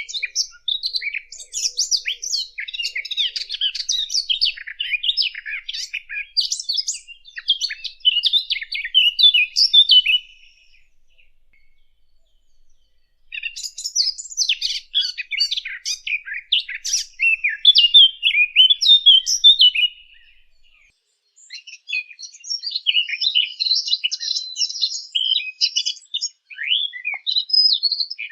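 Song of a Sylvia warbler, the bird known in Arabic as the fig bird (dukhul): three long bouts of fast, scratchy, high-pitched warbling, broken by short pauses about ten and twenty seconds in.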